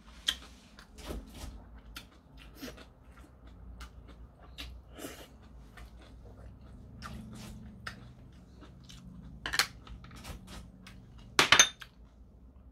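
Eating at the table: wooden chopsticks clicking against a porcelain bowl and chewing of noodles, in a scatter of short taps, with a louder clatter near the end.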